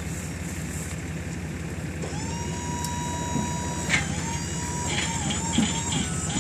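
Engine idling steadily, with the powered mechanism of the shed-delivery tilt-bed trailer whining over it. The whine starts abruptly about two seconds in, holds one pitch, then wavers up and down from about four seconds in.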